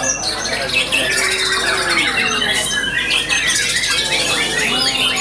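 White-rumped shama singing amid a dense chorus of other songbirds: rapid, overlapping whistles, trills and chattering phrases with no pause.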